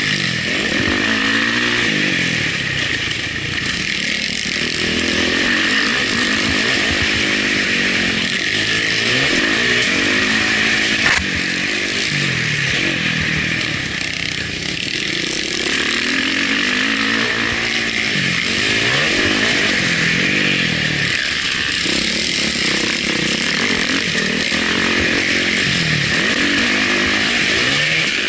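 Dirt bike engine revving up and falling back again and again as the rider accelerates, shifts and brakes around the motocross track, heard close up from a bike-mounted camera over a steady hiss. A single sharp knock comes about eleven seconds in.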